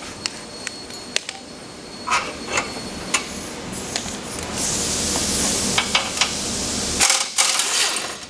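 Scattered metallic clicks and knocks of hand tools working the tow hook bolts as a pickup's front tow hook is unbolted from the frame. A hiss runs for a couple of seconds past the middle.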